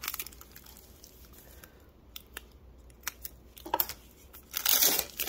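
Foil booster pack wrapper being torn open by hand: scattered crinkles and small clicks, with a louder burst of crinkling near the end.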